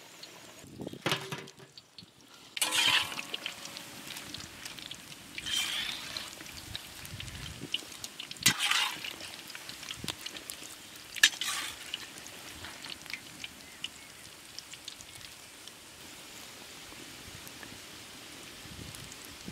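Chicken liver cutlets deep-frying in hot oil in a large wok: steady sizzling and bubbling, with several louder splashing bursts and a few sharp knocks in the first half as a perforated steel skimmer lifts and turns them in the oil, oil dripping back into the pan.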